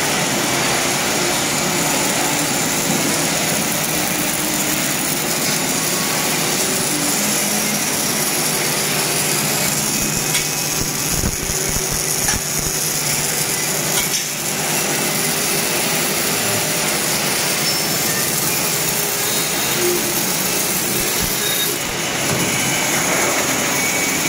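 Continuous workshop noise from arc welding of steel screw piles and the machinery around it: a steady, dense hiss.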